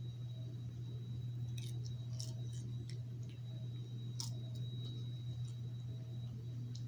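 Popcorn being chewed, heard as scattered faint crisp crunching clicks, over a steady low electrical hum.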